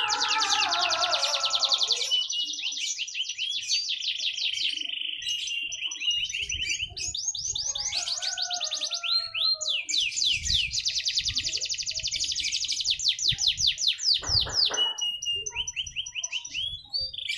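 Domestic canary singing: long runs of fast, high trills, many notes a second, broken by short steady whistled notes and brief pauses.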